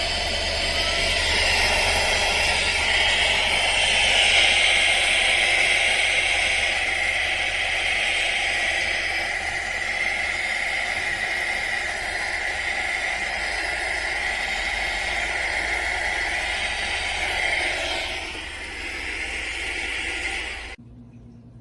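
Small cordless handheld vacuum-blower with a brushless motor running steadily: a high whine over a hiss of rushing air. It stops abruptly about 21 seconds in.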